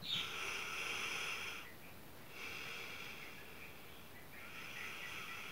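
A sleeping person breathing slowly and softly, three breathy hisses about two seconds apart.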